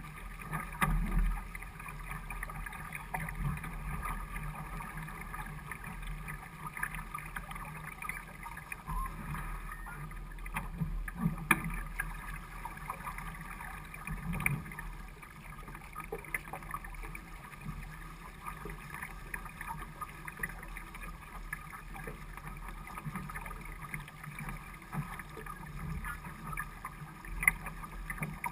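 Water rushing and splashing along the hull of a small sailing keelboat under way, steady throughout, with a few sharp knocks, the loudest about a third of the way in and near the end.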